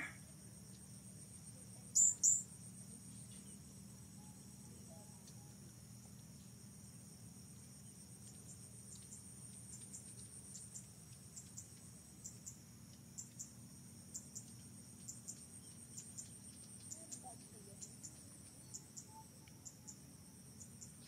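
Insects chirping in a steady, high-pitched drone, with many short high chirps repeating through the second half. Two loud, sharp high chirps come about two seconds in.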